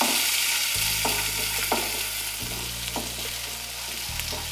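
Chopped onion sizzling in hot oil in a kadhai, with stirring strokes scraping the pan about once every three quarters of a second.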